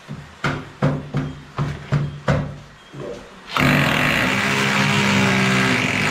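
Cordless drill run in about six short trigger bursts, then held running steadily and loud from a little past halfway, working into the wood of a kitchen cupboard.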